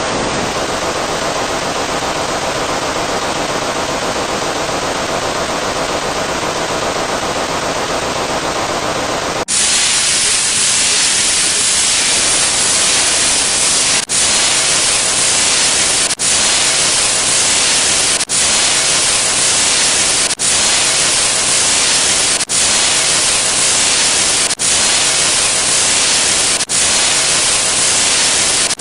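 Steady static hiss. About nine seconds in it abruptly turns brighter and harsher, then breaks off briefly about every two seconds.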